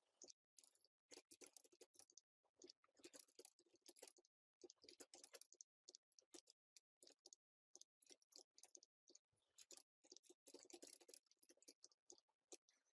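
Faint computer keyboard typing: quick, irregular key clicks in short runs throughout.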